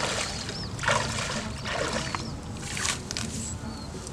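Water splashing in a muddy pond, four splashes about a second apart.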